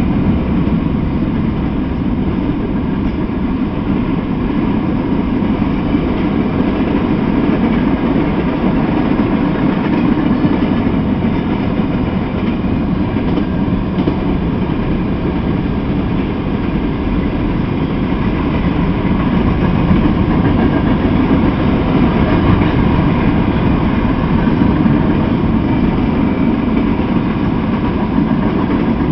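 Freight train of gondola and covered hopper cars rolling past on the track: a loud, steady rumble of wheels on rails.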